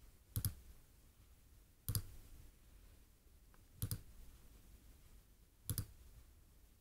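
Four computer mouse-button clicks, about one every two seconds.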